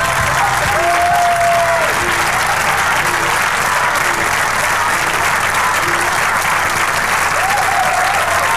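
Concert audience applauding steadily, with music playing faintly underneath.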